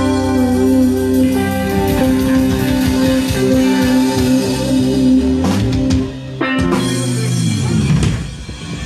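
Band music with guitar and drums playing held chords over a beat. The music breaks off about six seconds in, then a final phrase slides down in pitch and dies away near the end.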